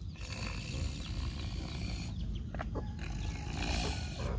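Wind buffeting the microphone: a steady low rumble with a faint hiss above it.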